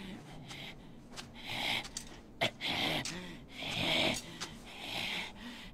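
A young man panting heavily: about four ragged, gasping breaths roughly a second apart, with some voice in them, getting louder toward the middle. A short sharp click comes about halfway through.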